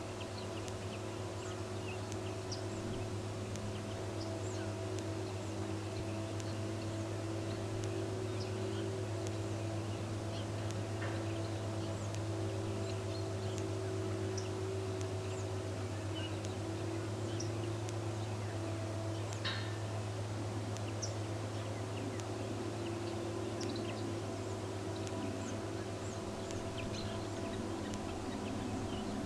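Steady low hum, with faint short bird chirps scattered over it and a slightly clearer call about 11 seconds in and again near 20 seconds.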